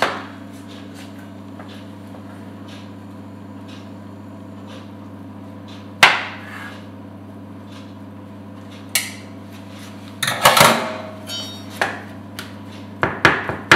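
A boiled egg being cut on a plastic cutting board with a metal wire egg slicer: sharp knocks about six and nine seconds in and a cluster around ten to eleven seconds. Near the end a chef's knife starts chopping the egg in quick knocks on the board. A steady low hum runs underneath.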